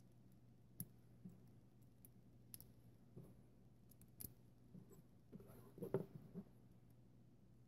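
Faint clicks and taps of small LEGO plastic pieces being handled and pressed together, a few scattered single clicks and then a busier cluster about two-thirds of the way through, over a faint steady hum.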